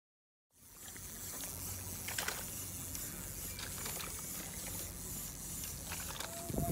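Open-air seaside ambience: a steady rush of wind and lapping water that starts about half a second in, with a few faint clicks.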